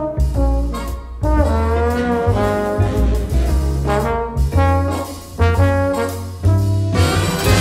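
Background music in a jazz style, with a brass-led melody over a strong bass line.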